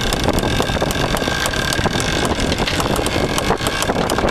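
Wind buffeting the microphone over the rush of water along the hull of a sailing yacht under way, with a steady high-pitched whine sounding through it.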